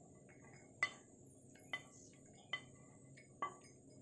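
Four light clinks of kitchenware, about one a second, as fried cashews, almonds and raisins are scraped from a non-stick pan into a glass bowl.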